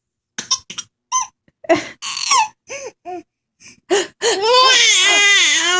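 A young child giggling: short separate bursts of laughter, then from about four seconds in a long, high, wavering squeal of laughter.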